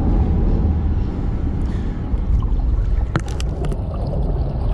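Water churning and splashing around a boat's stern under a steady low rumble, with a few sharp knocks a little past the middle.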